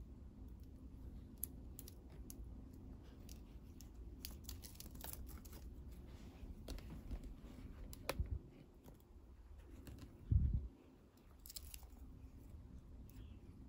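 Crinkling and rustling of a shiny gold ribbon as it is wrapped around thin wooden sticks, with scattered light clicks and taps. There are dull knocks about eight and ten seconds in, and the second is the loudest.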